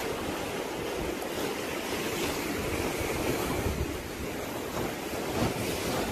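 Sea waves washing steadily, with wind buffeting the microphone in low gusts.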